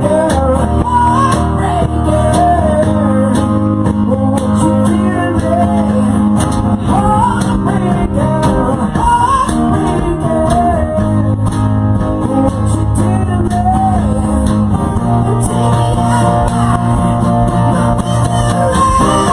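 A rock band playing live: a lead electric guitar line with bent, wavering notes over bass guitar and drums.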